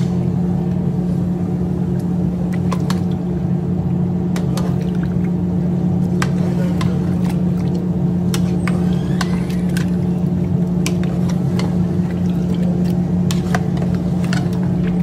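A long metal spoon stirring chicken pieces and sauce in a large aluminium pot, with scattered clinks and scrapes against the pot. Under it runs a steady, loud low machine hum.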